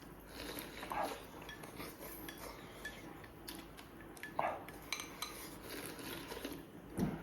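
Eating utensils tapping and clinking against bowls and dishes at a meal, a scattered run of light clicks, with a couple of brief louder sounds about a second in and just past four seconds.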